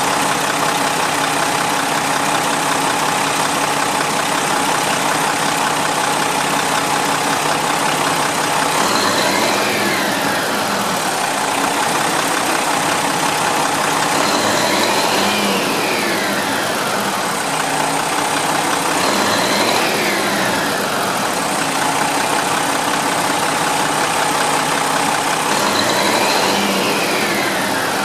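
A large coach's 13-litre-class turbocharged inline-six diesel engine idling steadily. From about nine seconds in it is revved four times, about every five seconds, each rev rising quickly and dropping back to idle.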